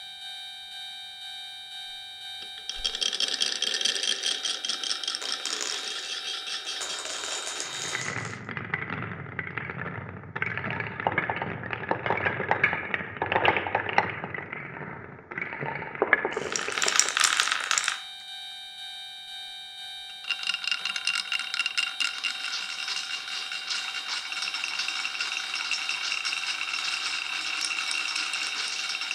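Marbles rolling and clattering down wooden and clear-pipe marble-run tracks, with a Japanese railroad-crossing warning bell ringing in a steady electronic ding-ding. About eight seconds in the bell stops and a heavier clatter of marbles with a low wooden rumble takes over; the bell starts again about ten seconds later while marbles keep rolling.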